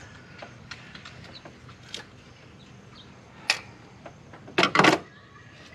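Hand tool and rubber hose clicking and knocking against engine-bay parts as a hose is worked onto an oil catch can fitting. There are scattered light clicks, a sharp click about two seconds in, another at three and a half, and a brief clatter of several knocks near the end.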